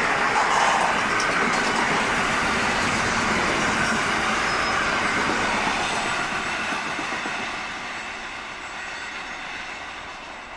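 Container wagons of an intermodal freight train rolling past, their steel wheels running over the rails. The sound fades from about two thirds of the way through as the last wagons go by.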